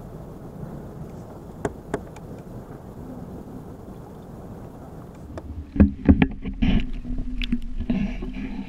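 Wind and water lapping around a fishing kayak, with two sharp clicks. About six seconds in come loud knocks and splashing as the GoPro dome housing goes into the water at the surface, with water sloshing against it.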